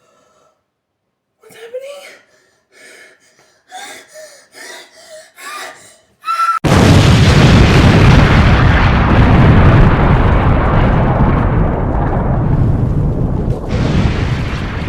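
A few short, quiet vocal sounds, then about six and a half seconds in an explosion sound effect starts abruptly and very loudly and rumbles on, slowly dulling, with a second blast swelling up near the end.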